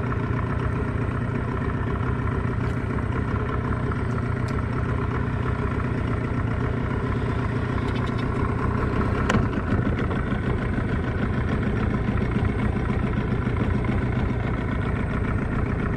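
An engine running steadily at an even speed, with one short knock about nine seconds in.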